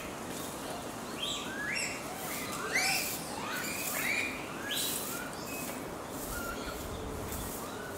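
Japanese macaques giving coo calls: many short calls that rise and then fall in pitch, from several animals at different pitches, overlapping, most of them in the first five seconds.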